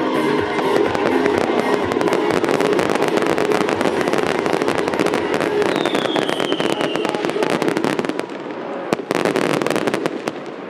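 Fireworks crackling: a dense run of rapid small pops, with a falling whistle about six seconds in. The crackle thins out near the end, with one sharp crack about nine seconds in.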